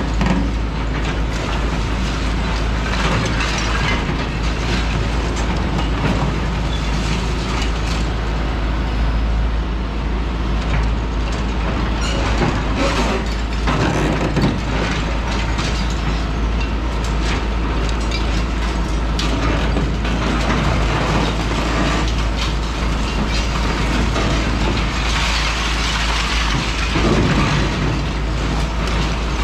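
Hitachi ZX210 demolition excavator's diesel engine running steadily under load while its demolition attachment crunches and pulls at concrete. Cracking and clattering rubble comes several times, heaviest around the middle and near the end.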